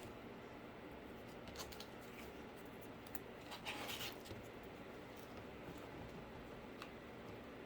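Faint crafting and handling noises while cardboard is worked: a few light clicks and a brief scraping rasp about halfway through.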